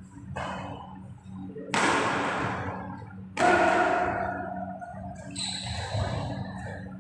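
Badminton rackets striking the shuttlecock in a rally, about four sharp hits roughly a second and a half apart, each ringing on in a long hall echo; the loudest comes about halfway through. A steady low hum runs underneath.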